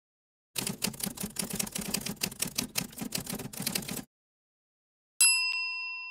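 End-screen sound effects: a rapid clatter of typing-like key clicks for about three and a half seconds. After a short gap comes a sharp click with a ringing ding that fades slowly, and another click near the end.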